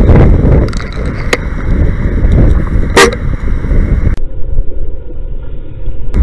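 Steady low rumble of passing road traffic and wind on the microphone, with a short car-horn toot about three seconds in.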